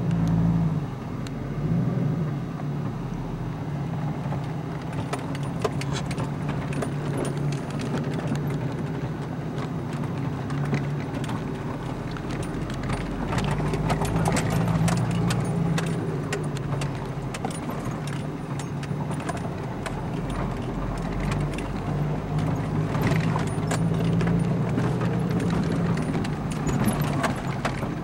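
Four-wheel-drive vehicle's engine running at low speed, heard from inside the cab, its note rising and falling with the throttle. Constant rattling and clicking comes from the vehicle jolting over a rocky trail.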